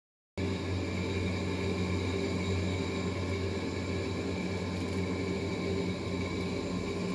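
Steady machine hum with several held tones, cutting in abruptly a moment in.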